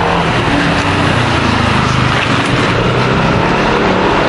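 Street traffic: a loud, steady rush of noise with the low hum of vehicle engines running close by.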